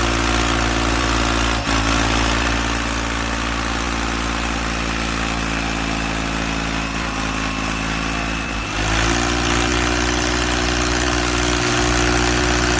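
Small engine idling steadily. About nine seconds in, its note dips briefly and then settles again at a slightly different pitch.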